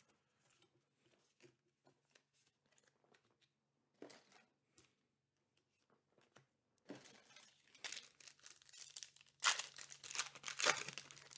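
Trading cards being handled with soft rustles, then near the end a booster pack's foil wrapper torn open and crinkled, the loudest part lasting about a second and a half.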